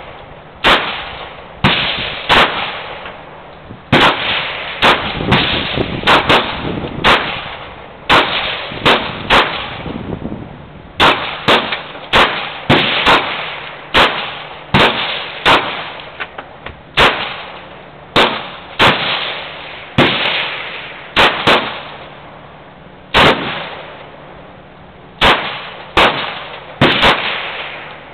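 Semi-automatic pistol firing a long string of sharp shots, irregularly spaced at roughly one to two a second with some quick pairs, each trailing off in a short echo.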